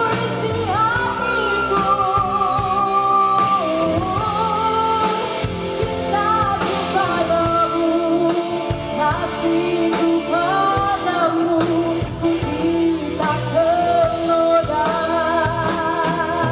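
Live singing of a Malay pop duet over band accompaniment, with long held notes that waver in vibrato.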